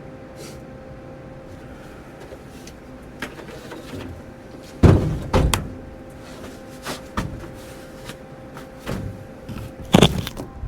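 Knocks and thumps against an old car body's sheet metal as someone crawls out of it, with two loud thumps about five seconds in and another near the end, over a steady faint hum.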